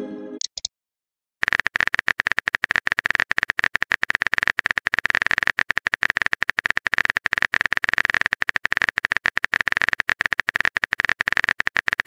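Phone-keyboard typing sound effect: a long, fast run of sharp clicks, starting about a second and a half in after a brief message tone at the very start.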